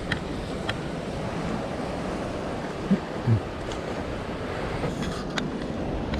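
Rough sea surf washing against a rocky shore, with wind buffeting the microphone as a steady rushing noise. A few sharp clicks and two dull thumps come about three seconds in.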